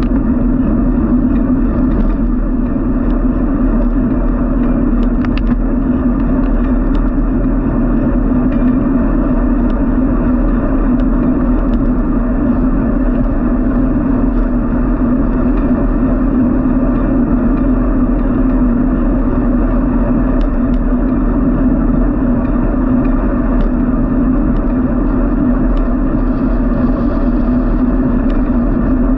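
Steady running noise of a vehicle moving along a street: a constant low hum with road and wind noise that does not rise or fall.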